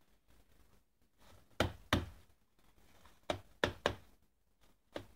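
Sharp knocks from hands working a paper fireworks shell hemisphere and its stars at a bench: six in all, in pairs and a triple.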